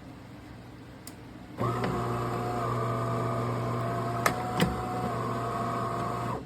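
De'Longhi Magnifica Start espresso machine's pump buzzing steadily with a low hum. It starts about a second and a half in and cuts off near the end, with two sharp clicks partway through.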